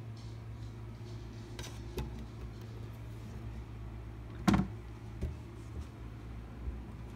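A single dull thump about four and a half seconds in, with a few faint clicks, over a steady low hum.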